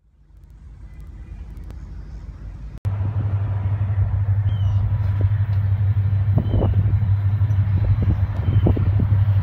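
Distant Union Pacific diesel locomotives on an approaching grain train, heard as a steady low drone. The drone comes in abruptly about three seconds in, after a quieter rumble fades in.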